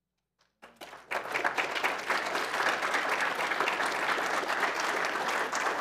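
Audience applauding: a few scattered first claps, then full, steady applause from about a second in.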